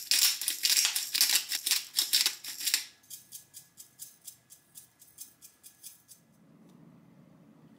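Black pepper grinder twisted over a plate, a quick series of loud rasping grinding strokes, followed about three seconds in by a salt shaker shaken in a soft, even rhythm of about three to four shakes a second for roughly three seconds.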